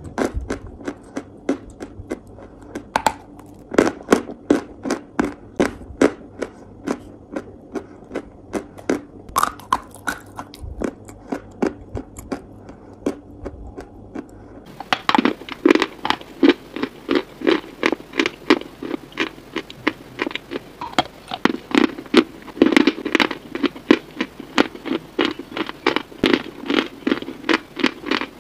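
Close-miked chewing of dry, powdery white chunks: a steady run of sharp crunches, a few a second. About halfway through, the crunching turns denser and fuller.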